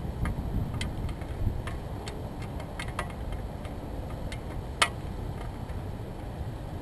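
Wind buffeting the microphone as a steady low rumble. Scattered light clicks and taps sound over it, with one sharper click about two-thirds of the way through.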